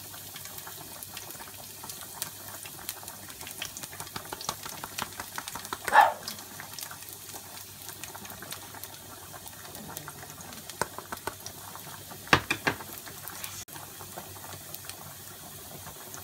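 Minced garlic sizzling and crackling in hot olive oil in a frying pan over medium heat, against the bubbling of a pot of boiling pasta. A short loud sound about six seconds in, and a few sharp knocks around twelve seconds.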